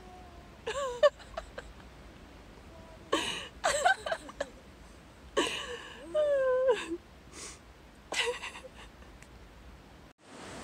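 Wordless, high-pitched vocal sounds from a person in four short bouts, the pitch sliding up and down, between quieter stretches of breathing.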